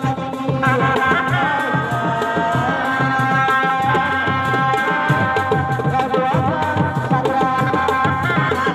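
Sundanese street-procession music: drums beaten with sticks in a fast, steady rhythm, under a held, wavering melody line.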